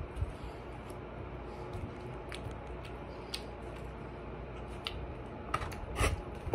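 A person eating with a fork close to the microphone: chewing with scattered small clicks, and a few louder clicks about five and a half to six seconds in, over a steady low background noise.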